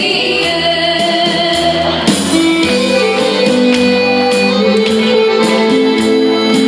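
Live pop band playing with a female singer's amplified voice, drums keeping a steady beat. About two seconds in the voice gives way to held electric guitar notes over the band.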